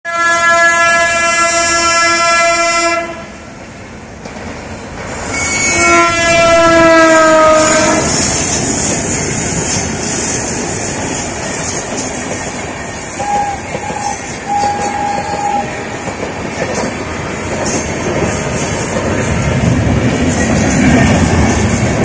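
WAP-7 electric locomotive's horn sounding a long blast, then a second blast about five and a half seconds in whose pitch slides down. After that, the continuous rumble and wheel clatter of passenger coaches rolling past.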